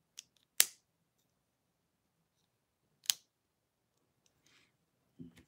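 Two sharp plastic clicks about two and a half seconds apart, with a fainter one just before the first, from a small plastic Ryusoulger toy figure being handled and turned.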